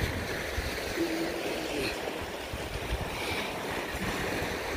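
Sea waves washing against shore rocks, with wind buffeting the microphone in an uneven low rumble.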